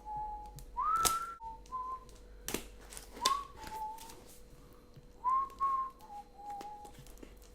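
A person whistling a casual tune: a string of held notes with little upward slides, broken by a few sharp clicks and knocks of a parcel being handled.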